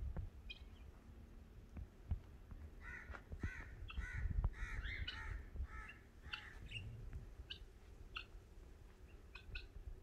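A bird's harsh calls repeated about eight times in quick succession, starting about three seconds in, followed by scattered short, high chirps from small birds.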